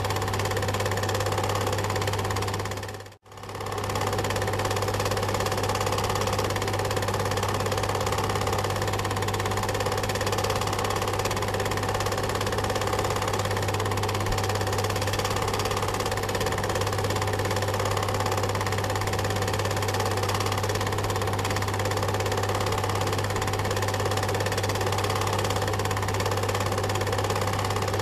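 Film projector running: a steady mechanical whirr with a strong low hum. About three seconds in it briefly fades to near silence and comes straight back.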